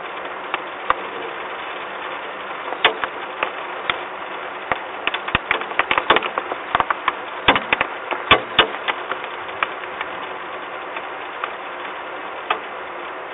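Steady hiss of rain falling on the nest ledge, with a run of sharp, irregular taps from about three to nine seconds in.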